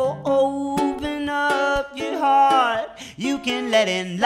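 Two voices, a woman's and a man's, singing together over strummed ukulele and acoustic guitar.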